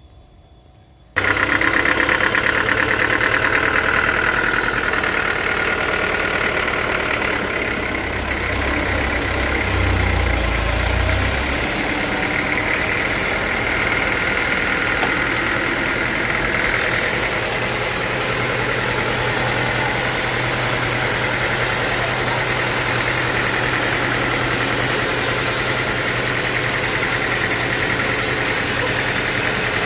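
Sawmill machinery running steadily, an engine with a steady high whine above it, cutting in abruptly about a second in.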